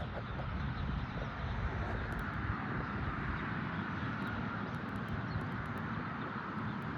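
Steady outdoor background noise, a low rumble with an even hiss above it and no clear bird calls.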